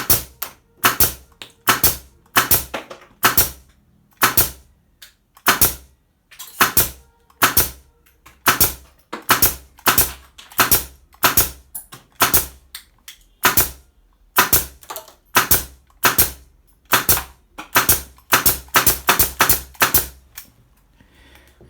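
Makute pneumatic nail gun firing nail after nail, a sharp crack about every half second to a second. In the second half the shots come in rapid double and triple bursts, and they stop about a second before the end.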